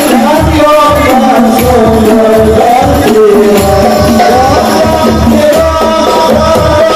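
Hadroh ensemble performing sholawat: men's voices singing a wavering, ornamented Arabic devotional melody over a steady beat of rebana frame drums with deep bass strokes.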